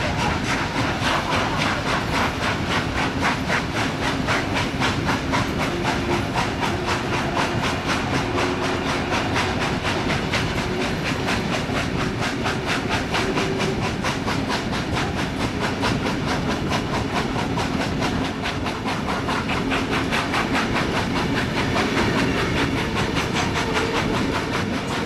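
Exhaust of NSWGR 36 class steam locomotive 3642 beating in a fast, even rhythm as it works the train, heard from an open carriage window over the rumble of the carriage wheels on the rails.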